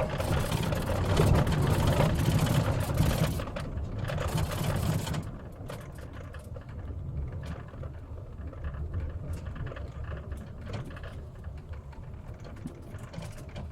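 Car interior: a steady low engine and road rumble from a vehicle on the move. A loud rushing hiss covers the first five seconds, and scattered small clicks follow.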